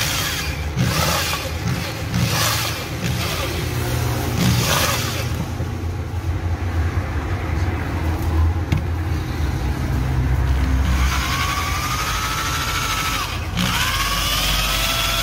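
Electric drill with a mixing paddle running in a tub of thick bungeoppang batter, stiff because only half the water is in yet. Near the end its motor whine rises in pitch, dips briefly, then rises again.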